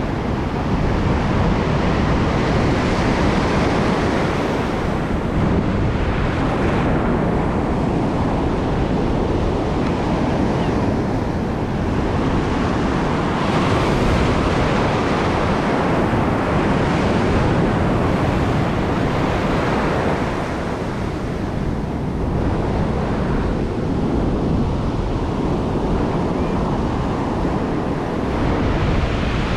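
Ocean surf breaking and washing up the sand, a loud rushing that swells and eases as each wave comes in, with wind buffeting the microphone.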